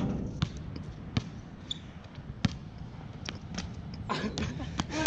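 Basketball bouncing on an outdoor hard court: several separate thuds at uneven intervals.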